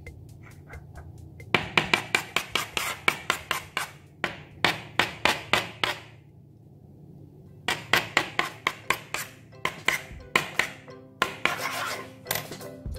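Metal spoon stirring a foamy dish-soap slime mixture, making quick wet clicks and scrapes at about five a second. The stirring comes in two runs with a short pause in the middle, and music starts near the end.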